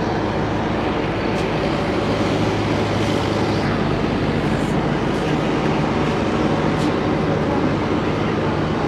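A steady engine drone, an even mechanical hum that holds its pitch throughout.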